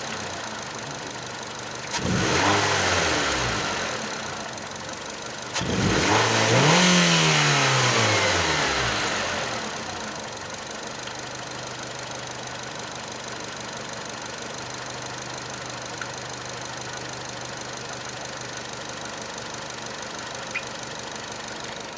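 JF11E engine blipped twice: revs jump and fall back about two seconds in, then a longer, louder rev about six seconds in, before it settles to a steady idle. It is being run up to bring out a scraping, squeaking, ticking noise that shows at revs.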